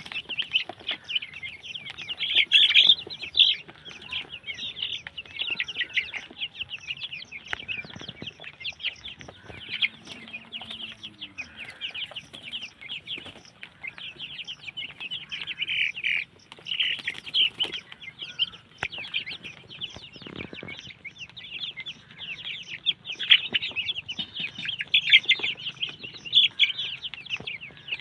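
A flock of Vanaraja chickens chirping and clucking: a constant dense chatter of short high calls from many birds.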